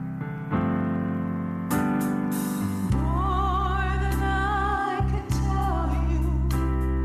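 Gospel music: sustained keyboard chords, then about three seconds in a solo voice comes in, singing long held notes with vibrato over the accompaniment.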